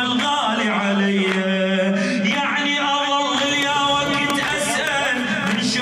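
Background music: men singing a devotional song without instruments, a wavering melodic line over a held low note.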